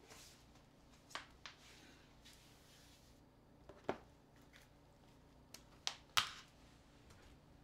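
A smartphone and small items handled on a hard tabletop: a handful of sharp taps and clicks spread out, with brief rustling between them, the loudest click a little past six seconds in.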